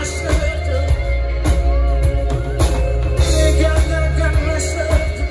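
Live rock band playing through a PA: a singer's voice over acoustic and electric guitars and a drum kit, with a steady bass and regular drum hits.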